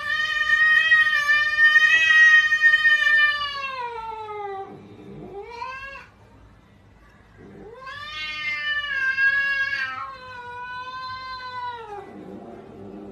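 Cat yowling in long drawn-out wails: a first yowl of about five seconds that sinks in pitch at its end, a short cry, then two more long yowls.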